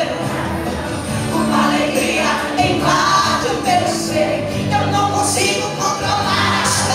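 A woman singing a gospel worship song into a microphone over amplified instrumental backing with steady low held notes.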